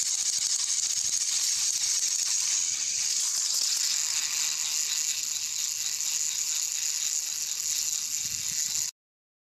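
Battery-powered plastic toy train running on plastic track: a steady, high rattling whir of its small motor and gears. It cuts off suddenly near the end.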